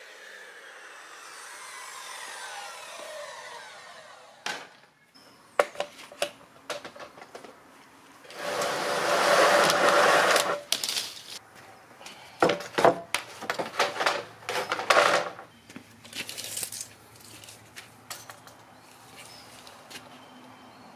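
A circular saw winds down after its cut through a stack of plastic lattice sheets, a falling whine over the first few seconds. After that, the stiff plastic lattice sheets clatter and scrape as they are lifted and shifted, loudest about halfway through.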